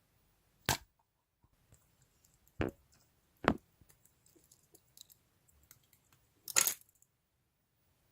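Slime being handled, giving four sharp pops with faint crackles between them; the last pop, near the end, is longer and brighter.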